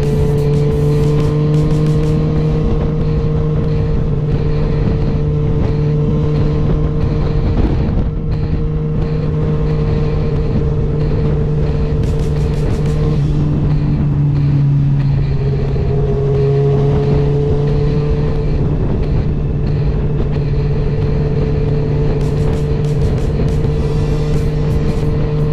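Sport motorcycle engine running at steady cruising revs under wind rush while riding, with the revs dropping to a lower steady note about midway through.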